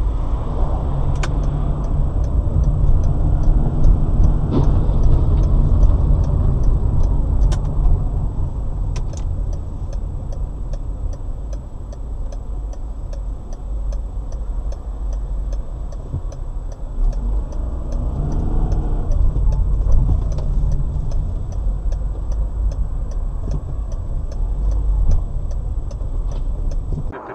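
A car driving, with steady low road and engine noise, heard from inside the vehicle, and a regular light ticking over it at about two ticks a second.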